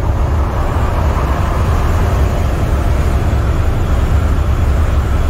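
Steady in-cab drone of an International semi-truck's MaxxForce 13 diesel engine and tyre-and-road noise while cruising at highway speed. The sound is deep and even throughout.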